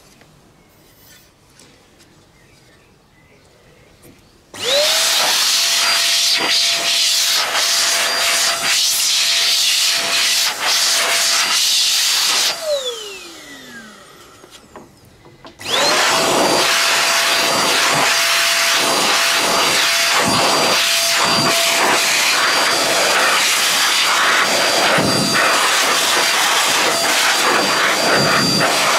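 High-pressure electric air blower blasting dust out of a PC's water-cooling radiator fins. It starts about four and a half seconds in, its motor whine rising and settling to a steady tone over a loud rush of air. After about eight seconds it spins down with a falling whine, then starts again about three seconds later and runs on.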